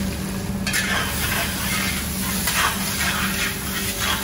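Chopped onions sizzling in hot oil in a bronze uruli as they are tipped in, the sizzle jumping up sharply about a second in, the onions starting on a high flame. Then a metal spatula scrapes and stirs them in the pot several times, over a steady low hum.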